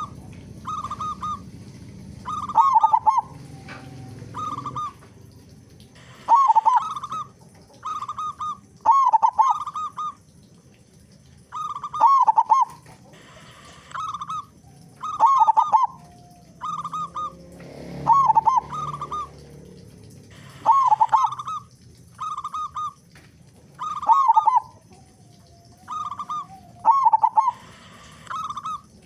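Local zebra dove (perkutut) cooing: a loud phrase of quick ringing notes, followed by a few softer coos, repeated about every three seconds.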